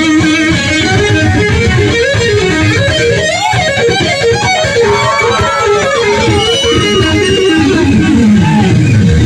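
Live electric guitar solo over the band: fast blues-rock runs full of string bends that slide up and down in pitch, ending in a run that falls toward the low notes near the end.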